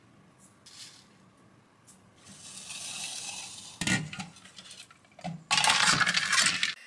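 Ice and water in a stainless steel mixing bowl: a pour-like hiss, then a few metal clanks, and near the end a loud rattle of ice cubes knocking against steel as a second stainless bowl is set down into the ice bath.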